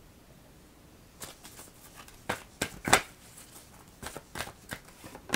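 A deck of cards being shuffled and handled in the hands: a string of short, uneven papery flicks and snaps starting about a second in.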